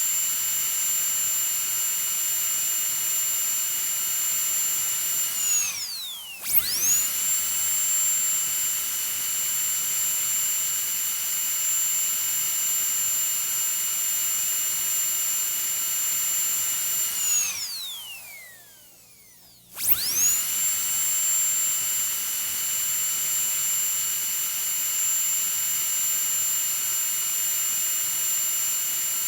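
Dentist's drill whining at a steady high pitch. Twice it winds down with a falling whine and spins back up: briefly about six seconds in, and a little past halfway, where it coasts nearly to a stop for about two seconds before starting again.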